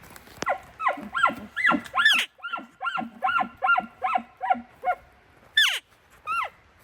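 Elk call blown by a hunter: a few rising bugle squeals, then a quick run of about ten grunting chuckles at roughly three a second, then two falling squeals near the end.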